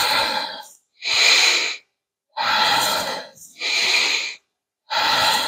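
A man breathing hard and fast, deep inhales alternating with forceful exhales, about one breath a second, five in all. It is a rapid breathwork exercise, each exhale pushed out by compressing the diaphragm.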